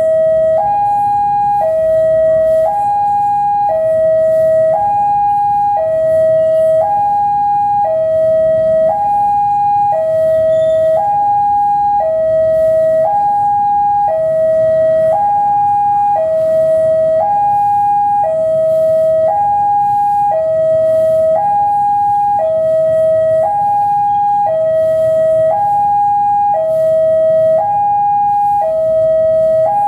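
Indonesian railway level-crossing warning alarm sounding its two-tone electronic signal, alternating high and low about once a second: a train is approaching the crossing. A low rumble from the approaching diesel locomotive runs beneath it.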